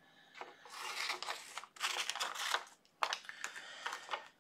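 Sheets of diamond-painting cover paper rustling and crinkling as they are handled and cut with scissors, in a run of noisy bursts with a few sharp clicks.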